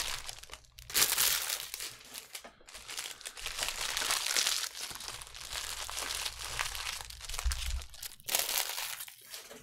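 Plastic trading-card pack wrappers crinkling and rustling as they are handled, in uneven bursts.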